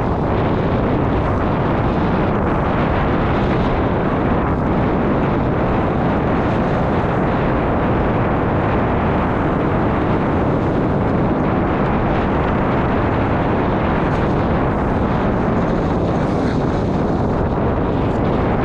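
Steady, loud rush and rumble of wind on the camera microphone during a fast downhill descent, with no let-up.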